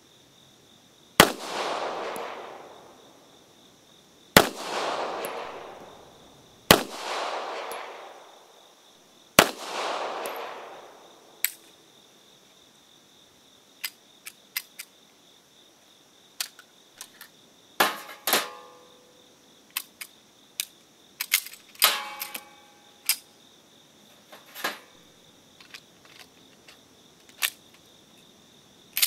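Four shots from a Beretta M1951 9mm pistol, two to three seconds apart, each with a ringing echo that dies away over about a second. A string of metallic clicks and clacks follows as the pistol is handled. Another sharp report comes right at the end.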